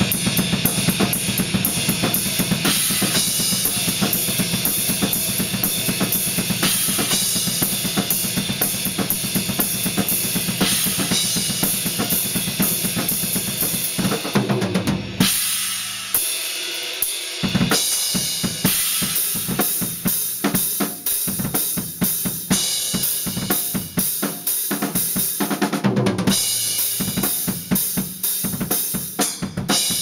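Acoustic drum kit played in a fast, dense beat of bass drum, snare and cymbals, recorded through a compact digital camera's microphone. About halfway through, the bass drum drops out for a couple of seconds while the snare and cymbals carry on, then the full beat comes back.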